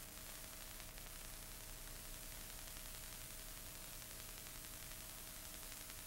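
Faint steady hiss with a low, even hum and occasional soft clicks: the background noise of an old 35 mm film soundtrack transferred to video, with no music or voice.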